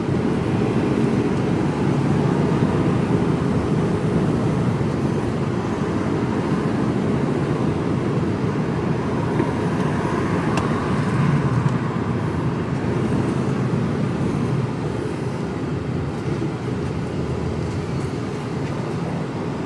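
Mercedes Actros lorry driving, heard from inside the cab: a steady low drone of engine and road noise that eases slightly over the last few seconds.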